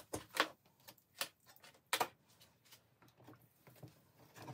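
Sharp clicks and light knocks as the alligator clips of an electrolysis rust-removal setup are unclipped and the knife is handled in its plastic tub of water. The loudest knocks come near the start and about two seconds in, with a cluster near the end.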